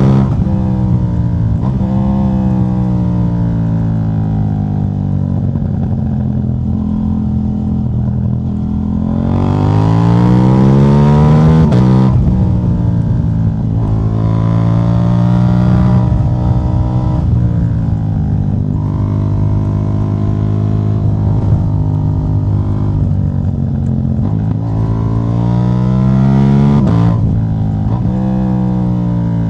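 KTM 790 Duke's parallel-twin engine running with its catalytic converter removed, under changing throttle. The revs mostly hold or slowly sink, climb steeply about a third of the way in and drop abruptly, then rise and fall twice more, briefly, later on.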